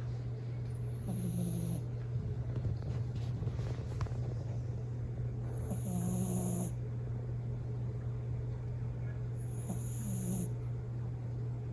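Bichon Frise dog snoring in its sleep: three short snores about four seconds apart, each with a high whistling edge, over a steady low hum.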